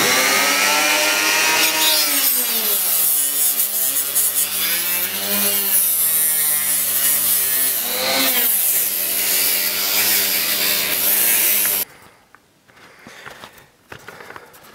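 Flex-shaft rotary tool with a grinding-stone bit grinding the edge of a hole cut in a polyethylene kayak hull, widening it to fit a flush-mount rod holder. Its whine dips and rises in pitch as the bit bears on the plastic, and it stops suddenly about twelve seconds in.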